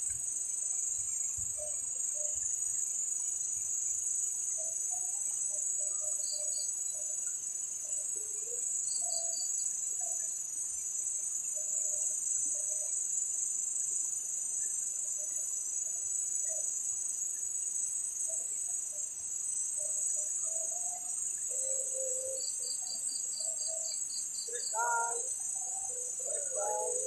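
Night insect chorus: crickets trilling in one steady high-pitched drone, with a few short trains of rapid chirps from another insect breaking in about six and nine seconds in and again near the end.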